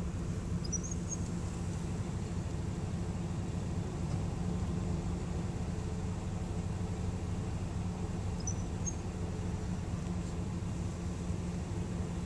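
Steady low engine hum, as of a vehicle idling. Two faint, short high chirps come shortly after the start and again about eight seconds in.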